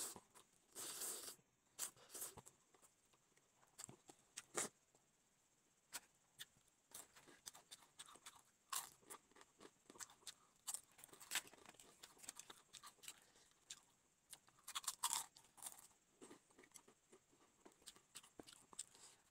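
Mukbang eating sounds: chowmein noodles slurped about a second in, then a long run of short crisp crunches and chewing as a fried crispy snack is bitten and eaten, between quiet gaps.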